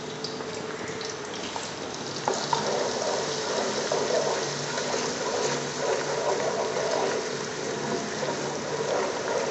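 Chopped onion, garlic and ginger frying in hot oil with whole spices, a steady sizzle, stirred with a wooden spoon that gives a couple of light knocks against the metal pot about two and a half seconds in.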